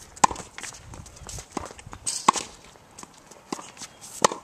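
A tennis rally on a hard court: three sharp pops of the ball off racket strings about two seconds apart. Fainter ball bounces and footsteps fall between the hits.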